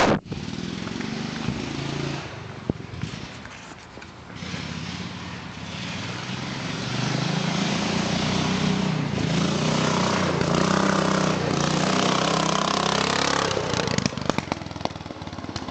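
Racing lawn mower's engine, with reworked cam and exhaust, running and revving up and down. It gets louder from about seven seconds in and eases off near the end.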